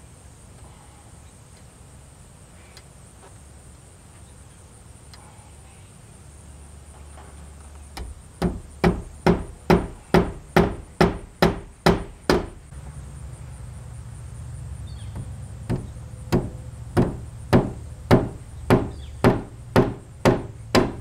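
Hammer blows at a steady pace of about two a second, in two runs of about ten strikes each with a short pause between, the first starting about eight seconds in.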